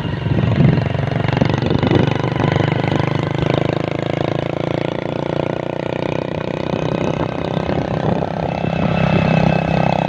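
A small engine running steadily, its pitch shifting a little a few times.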